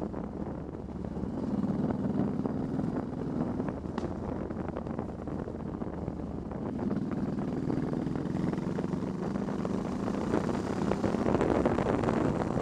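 Honda Shadow Spirit VT1100C motorcycle's 1,099 cc V-twin engine running at road speed, with wind noise on the microphone. The engine note swells about two seconds in and again toward the end.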